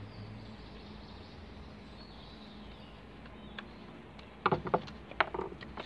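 Faint steady background, then, a little over four seconds in, a few sharp clicks and knocks as a screwdriver works the small nut and bolt that fix the plastic splice cassette to a fibre-optic splice closure's mount.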